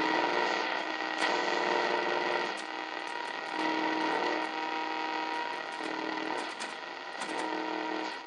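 Motorola-built R-390A tube communications receiver's speaker giving hiss and static while being tuned between stations, with steady whistling tones that come and go every second or two as the dial moves.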